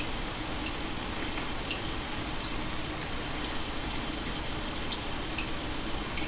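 Steady rushing water noise, with a few faint short high ticks now and then.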